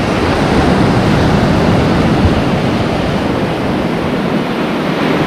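Surf breaking and washing over a rocky reef shore: a steady rush of water and foam.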